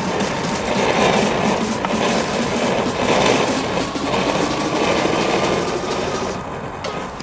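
Small Category 1 ground fountain firework spraying sparks with a steady hissing crackle, dying down near the end as it burns out.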